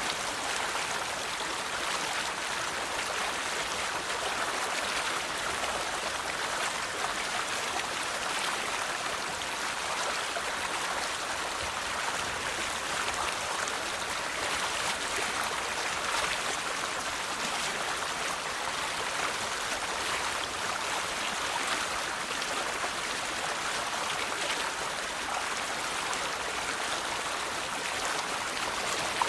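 River water flowing steadily over stones, a constant even rush and babble with no pauses.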